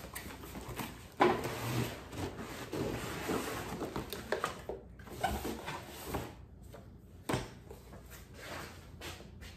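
A cardboard box being unpacked: cardboard and packing rustling and scraping as the steel stand parts are pulled out and laid on a wooden bench. There is a sharp knock about a second in, the loudest sound, and another about seven seconds in.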